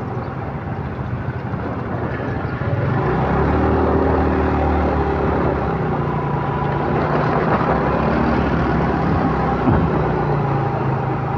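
Motorcycle riding along a road: engine running with road and wind noise, heard from the rider's handlebar-mounted recorder, getting louder about three seconds in as it picks up.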